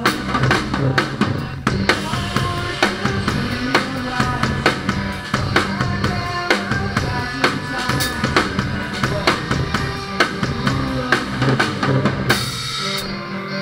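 Live rock band playing, with the drum kit loud and close: steady kick and snare hits and cymbals over sustained guitar and bass. Near the end the drums stop after a cymbal crash and the guitars carry on.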